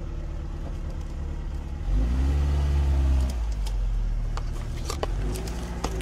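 Lada Niva engine running at low revs, revved up about two seconds in for a second or so and then dropping back, with a smaller rev near the end. Sharp cracks and clicks sound through the second half as the 4x4 crawls over sticks and a log.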